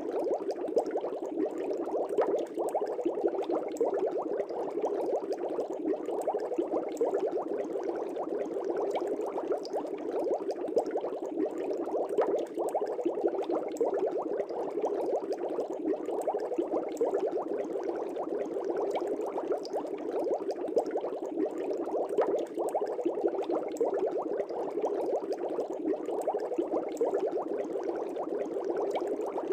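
Fish tank air bubbles bubbling steadily, a dense unbroken churn with a fine rapid flicker.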